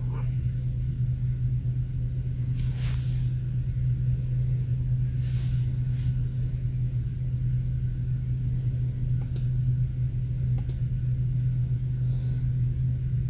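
Steady low hum with no speech, broken by a couple of faint brief hisses about three and five seconds in.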